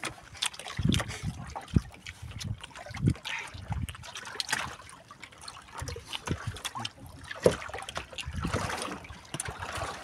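Sea water lapping and splashing against a small wooden boat's hull, with scattered light knocks and clicks.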